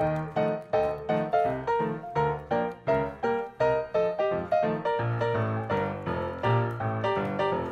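Background piano music: quick, evenly spaced notes, about three a second, over a bass line.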